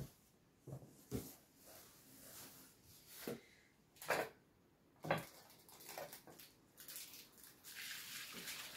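Quiet handling noise: a few soft knocks and rustles as clothing is lifted out of a cardboard box and items are handled at the table, then a longer rustle near the end.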